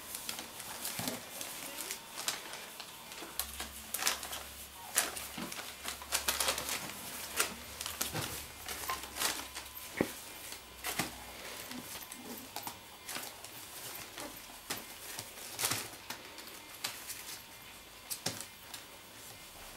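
Young puppies scrabbling about on newspaper: an irregular patter of small claws and paws with crinkling and rustling paper, many short clicks close together.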